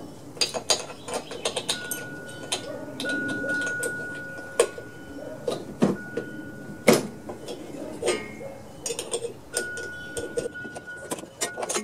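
A socket wrench ratcheting, with metal tools clicking and clinking in an irregular run, as the spark plug is unscrewed from the mower's Kohler engine.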